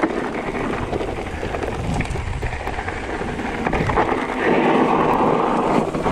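Mountain bike tyres crunching over a gravel trail at speed, with the bike rattling and wind on the microphone. From about four and a half seconds in the rushing grows louder as the bike slides off the trail into the verge.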